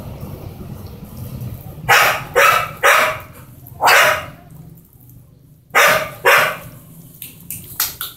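A dog barking in short, sharp barks: four in quick succession about two seconds in, two more about six seconds in, and two softer ones near the end.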